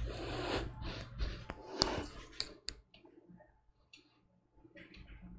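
Rustling movement noise and several sharp clicks as a person gets up and moves away from the microphone, dying away after about two and a half seconds into faint room tone with a few light clicks.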